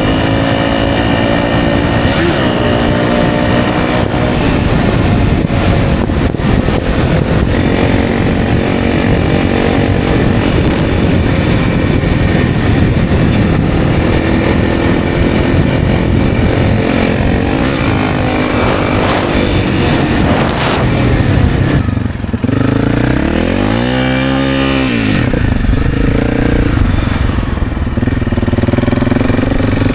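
Honda CRF300's 286cc single-cylinder engine running under load as the bike is ridden through deep sand. About three quarters of the way through, the revs swing up and back down once.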